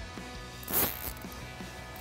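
Plastic zip tie being pulled tight around a bunched wiring harness: one quick ratcheting zip, under half a second long, about two-thirds of a second in.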